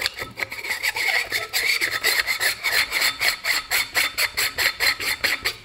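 Threaded sunshade being screwed onto the objective end of a Vortex Razor HD Gen III 6-36x56 rifle scope: the threads rasp in a rapid, even run of short strokes, about five a second.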